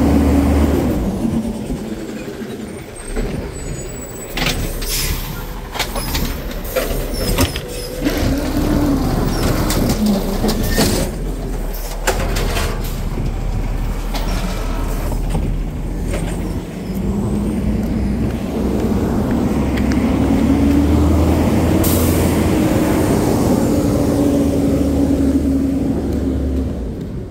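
Side-loading garbage truck working at the curb. Its engine revs up and down, loudest in a long rise and fall over the last third. A run of clanks and knocks comes in the middle, and a short air-brake hiss sounds near the end.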